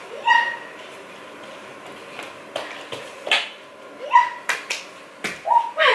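Pomeranian puppy giving short, high whines and yips several times, one near the end falling in pitch, with a few sharp clicks between them.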